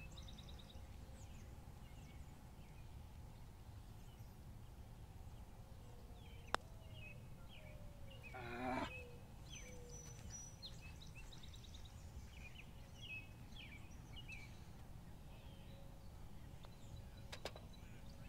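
Faint outdoor ambience: many short bird chirps over a low, steady background rumble. There is one sharp click about six and a half seconds in, and a brief, louder cry with a bending pitch around nine seconds in.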